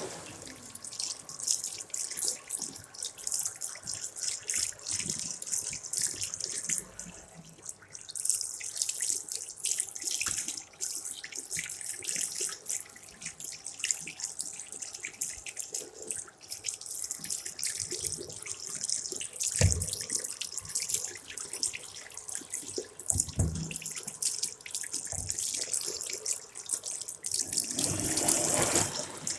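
Tap water running into a sink basin, splashing unevenly as hands are washed under it, with a couple of dull knocks.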